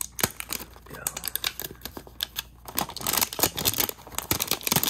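Cardboard Pokémon mystery box being pulled open by hand: a run of sharp clicks and scrapes of card and packaging, growing denser and louder about three seconds in.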